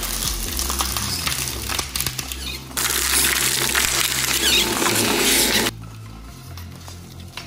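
Twin-shaft industrial shredder running, its steel cutter discs grinding and tearing apart a foam toy glider. The tearing is loudest from about three seconds in and stops abruptly near six seconds, leaving only the shredder's motor running.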